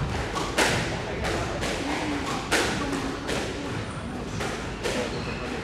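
Squash ball smacking off rackets, the court walls and the floor: sharp hits that ring on in the court, the loudest about half a second and two and a half seconds in, with fainter knocks between.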